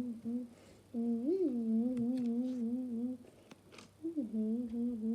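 A wavering hummed tone that swoops up and back down, then holds on one pitch. The phrase is repeated three times in a row.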